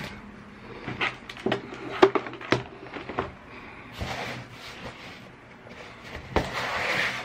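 Cardboard box being handled on a desk: a string of knocks and taps as it is lifted, gripped and turned, with a short scrape near the end.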